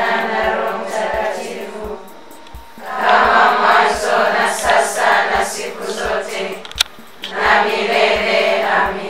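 A women's choir of religious sisters singing a Swahili Catholic hymn in phrases, with short pauses between them, over a soft, steady low beat.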